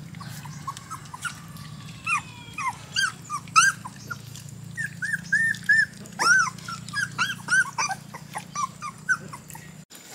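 Dog whining and yelping: many short, high-pitched cries in quick succession, some overlapping. A steady low hum runs underneath and cuts off near the end.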